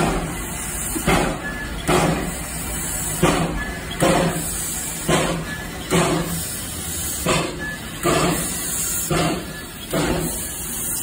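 Small steam locomotive chuffing slowly as it moves off, about one exhaust beat a second, with steam hissing from its open cylinder cocks. A short high squeak repeats about every two seconds.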